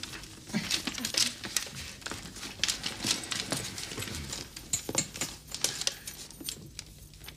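Handling noises from a telephone cord and a leather handbag: scattered rustles and sharp clicks as the cord is pulled and the bag is worked.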